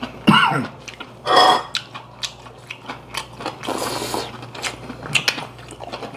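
Close-up eating sounds of kimchi and boiled pork: chewing with full mouths and chopsticks and dishes clicking. A short voiced moan falls in pitch near the start, and a long breathy slurp comes through pursed lips about four seconds in.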